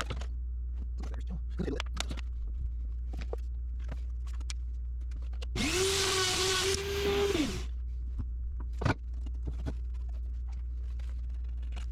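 Scattered light scrapes and clicks of hand work, then about halfway a handheld rotary tool spins up, runs for about two seconds at a steady high pitch and winds down, cleaning old exhaust gasket material off the header and cylinder head.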